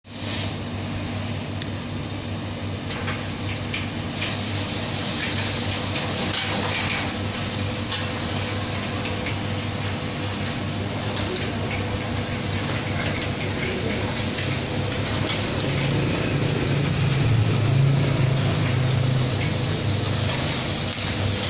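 DEA electric gate operator running steadily, a low motor-and-gearbox hum as it drives a remote-controlled fence gate around a curved track, swelling slightly near the end.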